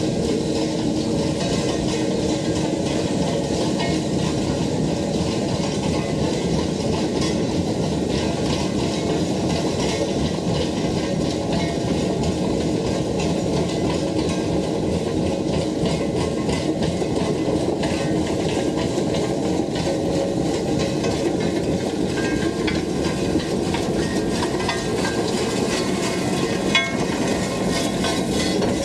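Heavy machinery running steadily as a soils conditioner attachment turns over and levels a gravel driveway. A single brief click sounds near the end.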